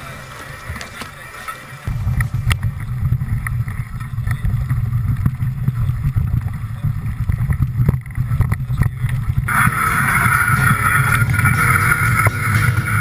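Steady low rumble of wind and jostling on a mountain-bike action camera's microphone, with scattered knocks and rattles; it gets louder about two seconds in, and a brighter hiss joins in the last few seconds.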